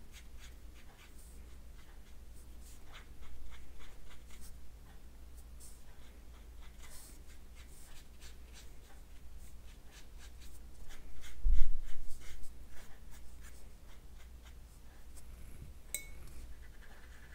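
Paintbrush dabbing and brushing on watercolor paper: soft, scattered scratchy ticks. There is a dull thump about eleven seconds in and a light click near the end.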